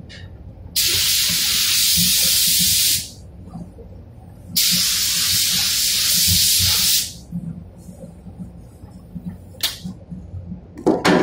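Compressed-air gravity-feed spray gun hissing in two passes of about two seconds each, laying a coat of clear coat onto car body panels, over a steady low hum. A few knocks near the end.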